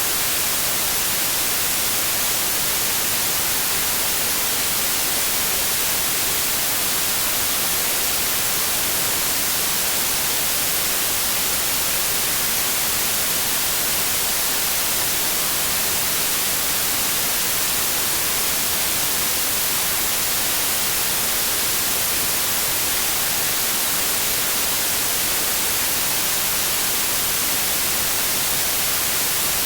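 Steady, unchanging white noise: an even hiss, brightest in the high treble, with no rhythm or variation.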